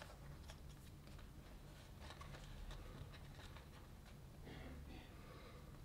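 Near silence: faint scattered ticks and soft rustles of hands working a glue syringe against the vinyl of an inflatable, over a low steady room hum.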